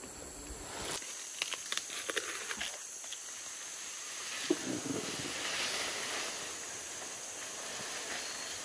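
Rustling leaves and crackling twigs in rainforest: a run of sharp crackles about a second in, then a longer hissing rustle, over a steady high drone of insects.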